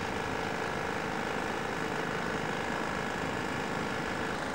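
A motor running steadily: an even whirring noise with a constant hum through it, the hum fading shortly before the end.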